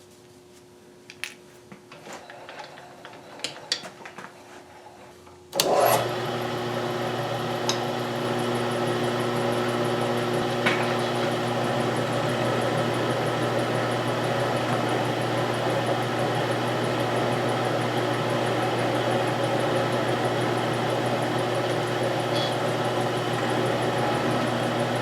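A few light clicks and taps, then about five and a half seconds in a milling machine's motor switches on and runs steadily with a constant hum.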